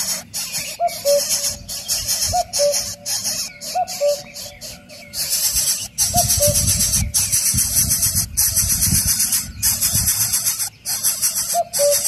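A bird's short two-note whistled call, a quick rising note then a lower one, repeated several times with a pause partway through, over a steady pulsing high hiss.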